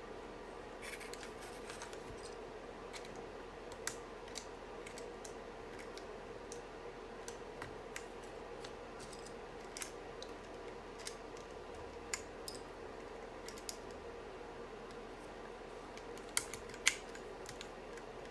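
Scattered, irregular sharp clicks and light snaps of hand work on small keyboard parts and tools, over a steady low hum, with two louder clicks near the end.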